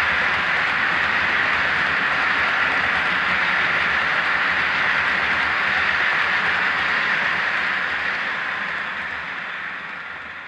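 Loaded OO gauge model log wagons (RevolutioN Trains IWA) rolling along the track, a steady running noise of metal wheels on model rail that fades over the last two seconds as the end of the train passes.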